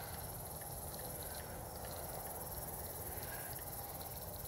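Lakeside outdoor ambience: insects chirring steadily in a high, even band over a low rumble.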